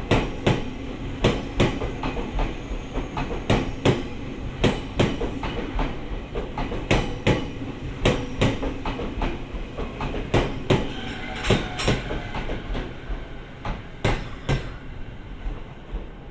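JR East 209-series MUE-Train electric multiple unit running past, its wheels clacking over rail joints and points in quick clicks and pairs of clicks over a low running rumble, with a brief high whine about two-thirds through. The clacking dies away near the end as the last car passes.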